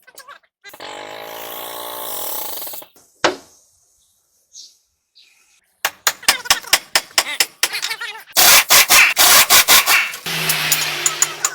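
Mechanic's tool work: a short whirring motor near the start, then, after a pause, a long run of sharp metallic clicks and rapid rattling strikes like a ratchet or impact tool, ending in a low hum.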